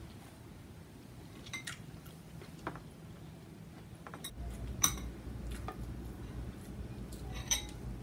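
Chopsticks clinking against a ceramic bowl: a handful of separate, sharp clinks, the loudest about five seconds in. A low steady hum comes in about four seconds in.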